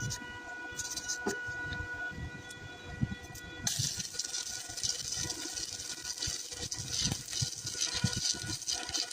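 Welding: irregular crackling and spattering, with a thin steady whine that fades in the first seconds and a denser, hissier crackle from about four seconds in.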